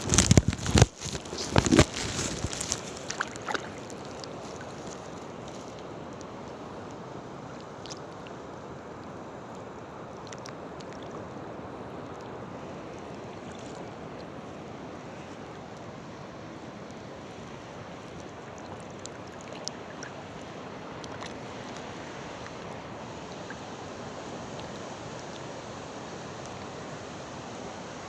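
Sea water washing and wind on the microphone make a steady rushing noise. In the first three seconds or so there is a burst of loud, irregular knocks and crackles close to the microphone.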